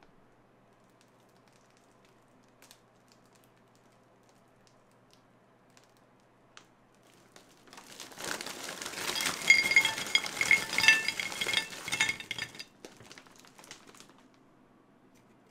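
A plastic bag crinkling as crisp fried dough twists (mahua) are tipped out of it, clattering and clinking onto a stoneware plate. It starts about seven and a half seconds in, runs dense for about five seconds, and fades out.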